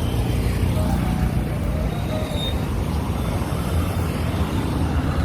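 Steady road traffic noise: motor vehicle engines running and passing.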